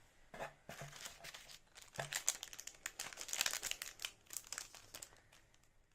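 Packaging crinkling as it is handled and unwrapped: a dense run of irregular crackles that thins out and fades near the end.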